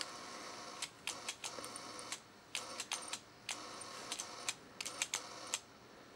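Homemade 300 kHz vacuum-tube Tesla coil arcing inside a glass jar onto potting soil: a steady buzz with irregular sharp snaps and crackles. The sound stops about five and a half seconds in.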